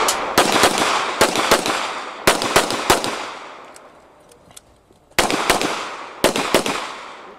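Pistol fire on an IPSC practical shooting stage: rapid strings of shots, several a second, each followed by a short echo. The firing stops for about two seconds in the middle, then another quick string follows.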